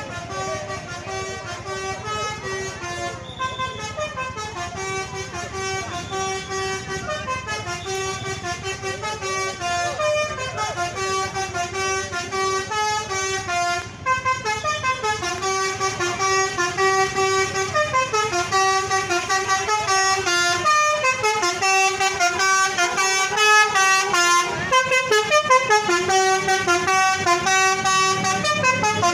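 Basuri telolet horn, a multi-trumpet bus air horn, playing a tune of stepped notes over and over, louder in the second half.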